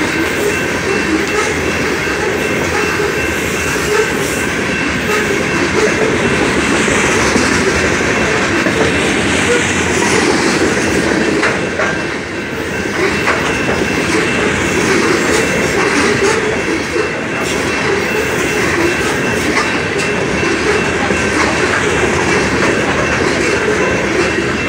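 Loaded or empty coal hopper cars of a freight train rolling by: steady loud rumble and clatter of steel wheels on the rails, with clickety-clack over the joints. A thin, steady high squeal from the wheels runs over it.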